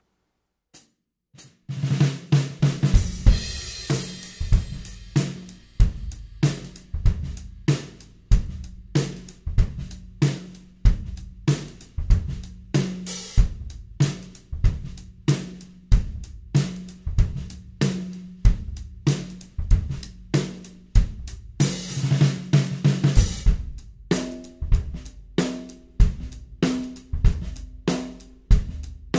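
Drum kit groove of kick, hi-hat and snare backbeat on a 14x6.5 aluminium snare fitted with a new Evans Heavyweight Dry two-ply batter head, played to show how the head sounds. Crash cymbals ring out about 3 s and 22 s in. From about 24 s the snare is heard at a medium tuning, with a higher ring in each hit.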